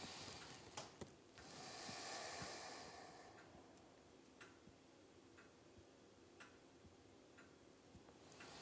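Near silence with one slow, soft breath lasting about two seconds, starting about a second in, from a person lying at rest. After it come faint small ticks about once a second.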